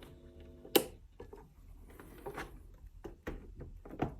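Sharp clicks and knocks from a Radiocorder 4000 CS radio cassette player's controls and plastic case being handled, the loudest about a second in and another near the end. A low steady hum stops at the first click.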